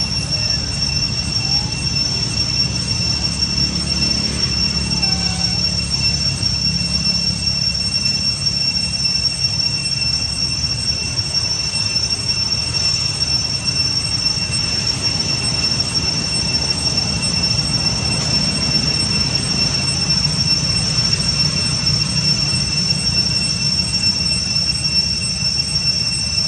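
Cicadas droning steadily in two high, unchanging tones over a continuous low rumble.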